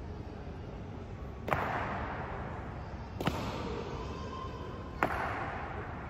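Three sharp, single impacts a little under two seconds apart, each ringing on in a long echo: honor guards' drill strikes on the hall floor during the changing of the guard.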